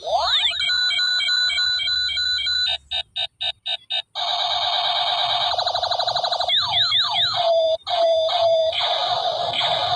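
Electronic sound effects from a battery-powered toy gun: rising laser-like sweeps, a pulsing tone, a quick string of clicks, rapid machine-gun-style pulsing, then falling zaps and repeated siren-like bursts.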